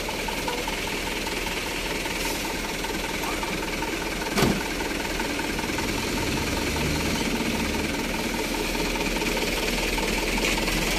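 Light dump truck's engine running steadily, growing slightly louder toward the end, with a single sharp knock about four and a half seconds in.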